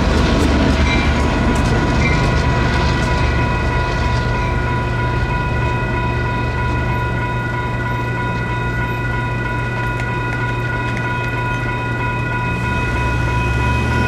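A WCH electronic crossing bell ringing steadily, while the diesel locomotives' engines run with a low, steady hum. A few wheel clicks come over the first few seconds as the light power pulls away over the crossing.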